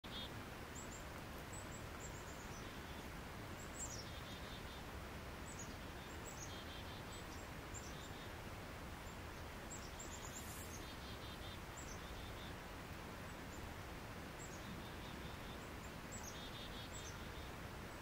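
Faint high chirps and short rapid trills of small birds, recurring every second or two over a steady outdoor hiss.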